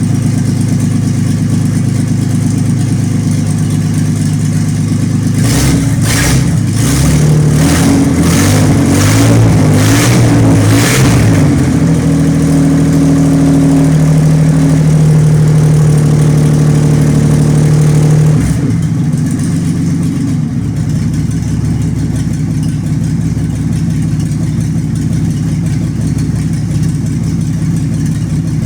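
Tornado 380 straight-six engine running: it is blipped several times about five seconds in, held at a raised speed, then drops back to a steady idle about eighteen seconds in.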